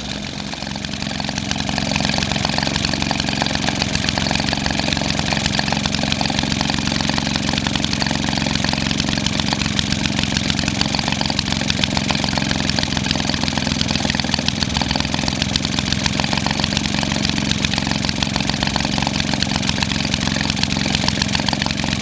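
1946 Maytag model 72D twin-cylinder two-stroke washing-machine engine running steadily at about 1,350 rpm, a fast even beat. It is a little softer for the first second or two, then holds constant.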